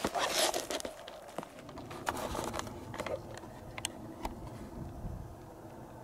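Rustling and crunching of dry forest undergrowth and twigs under slow footsteps, loudest in the first second, with scattered small snaps and ticks.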